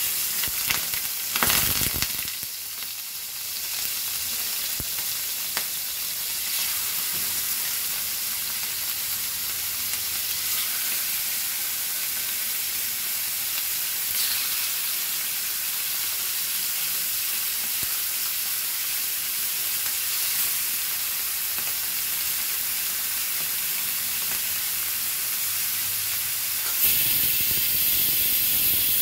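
Marinated chicken gizzards sizzling in hot oil in a frying pan as the pieces are laid in: a steady high hiss, louder about two seconds in and again near the end.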